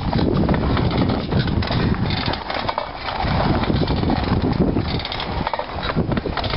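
Pedal rail cart rolling along the track, its steel wheels rumbling and clattering irregularly over the rail, with wind on the microphone.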